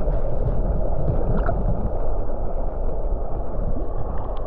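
River water flowing past a GoPro submerged in the stream: a steady, dull rushing heard from underwater, with little high-pitched sound.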